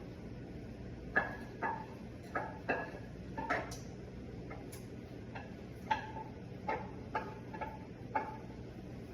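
About a dozen irregular clinks of a utensil against cookware, each with a short ring, as rice pilaf is scraped out of a pan into a glass container.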